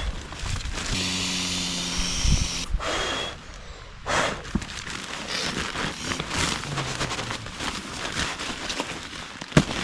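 Rustling and clattering of camping gear being handled, a brief low steady hum about a second in, and a sharp click near the end.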